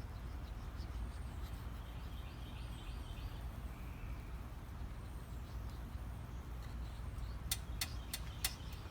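Steady low outdoor rumble with faint bird chirps, and a quick run of about five sharp clicks near the end.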